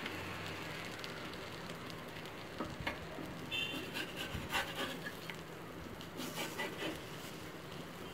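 Egg batter sizzling under a chapati on a hot tawa, with a steel spatula pressing and scraping on the pan and giving scattered clicks from about a third of the way in.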